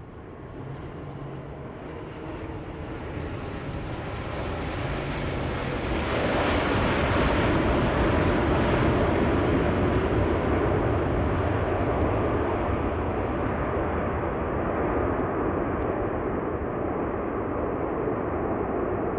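Airbus A350 airliner's Rolls-Royce Trent XWB jet engines during the landing rollout: a rushing engine noise builds after touchdown, swells sharply about six seconds in as reverse thrust is applied, then eases slowly as the aircraft decelerates on the runway.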